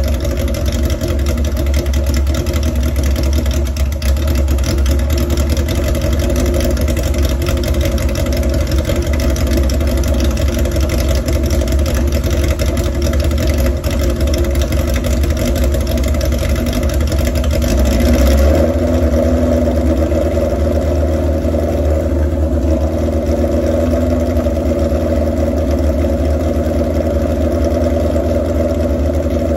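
Warm carburetted motorcycle engine idling steadily during a propane test for a vacuum leak at the intake rubbers; the idle shows no change there. About eighteen seconds in the engine sound shifts and gets briefly a little louder.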